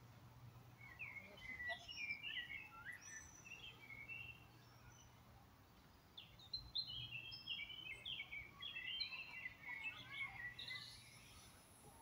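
Songbird singing in two bouts of quick, varied chirping phrases, the first in the opening few seconds and the second from about six and a half seconds to near the end.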